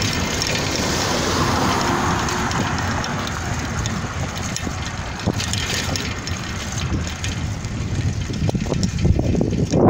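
Wind buffeting the microphone over road noise, as a car passes and pulls away ahead in the first few seconds. Heavier gusts of wind hit the microphone near the end.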